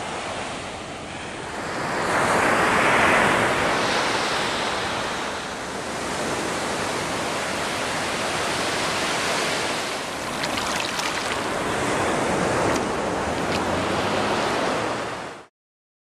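Ocean surf: waves breaking and washing up a sandy beach in a steady rush, swelling loudest about two to four seconds in, then cutting off suddenly near the end.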